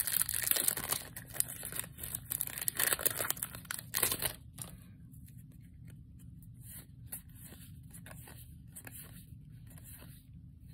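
Trading cards sliding, rustling and flicking against each other as they are flipped through by hand. The rustling is busiest for the first four seconds or so, then thins to softer, scattered clicks.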